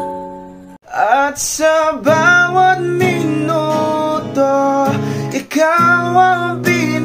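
A held chord fades out over the first second. After a short break, a man sings a slow Tagalog ballad in Filipino pop style, with an acoustic guitar strummed under his voice.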